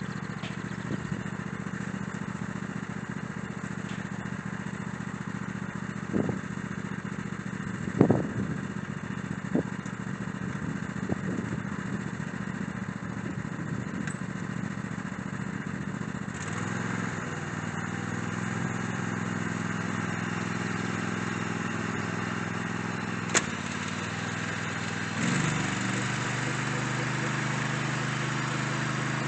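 Tractor engine running steadily while cultivating garden rows, with a few short knocks early on; about halfway through, the engine note changes and gets a little louder.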